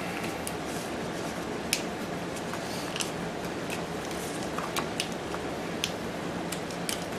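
Corrugated plastic split-loom tubing being handled as wires are pushed into it: scattered light clicks and rustles, a few seconds apart, over a steady background hiss.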